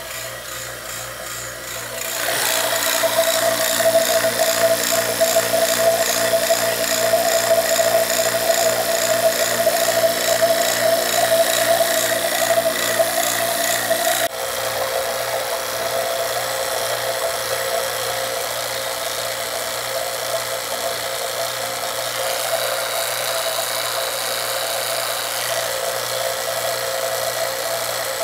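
HVAC vacuum pump running steadily, evacuating an air-conditioning system's refrigerant lines: a steady motor hum with a rapid pulsing throb. It gets louder about two seconds in and changes abruptly about halfway through.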